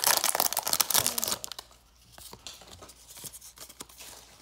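Foil Pokémon booster-pack wrapper being torn open and crinkling, loud for about the first second and a half. After that come fainter light rustles and clicks as the cards are slid out and handled.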